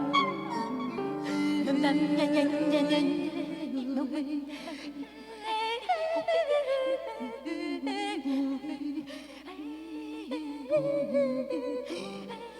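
Improvised music: a wordless voice sings wavering, gliding notes over a low sustained tone that drops out about three and a half seconds in and comes back near the end.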